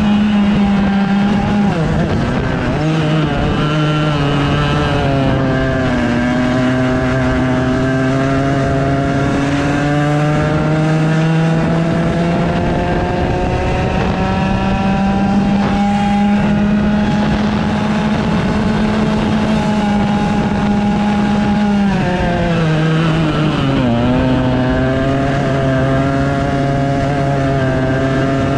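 100cc two-stroke kart engine under hard throttle. Its pitch drops sharply as the kart slows for a corner about two seconds in, climbs steadily along the straight, drops again near the end for the next corner, then rises as the kart accelerates out.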